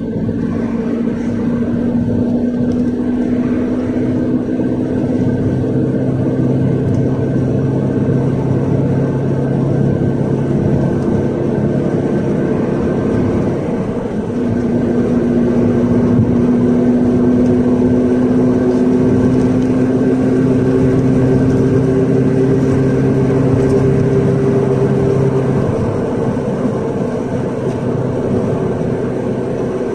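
Cabin noise inside a GAZ-322133 (Luidor-225000) minibus on the move: its UMZ-4216 four-cylinder engine, running on LPG, drones steadily over tyre and road noise. About halfway through the engine note dips briefly, then comes back a little louder and rises slowly in pitch as the bus pulls on.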